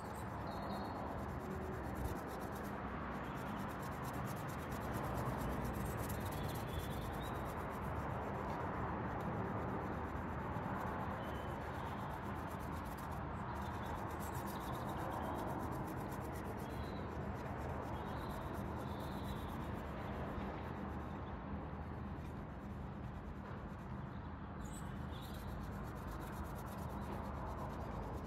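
Steady scrubbing of a scouring pad against a motorcycle's grimy exhaust downpipes, working a cleaner into the baked-on dirt.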